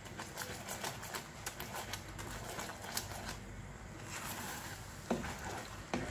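A plastic spatula stirring a thick, bubbling melon-seed and sugar-syrup mixture in a frying pan, with irregular scraping and tapping against the pan and two sharper knocks near the end.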